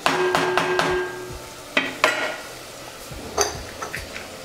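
Wooden spatula stirring thick vegetable masala in a cast iron Dutch oven, knocking against the pot several times in the first second, then a few single knocks. The food sizzles softly underneath.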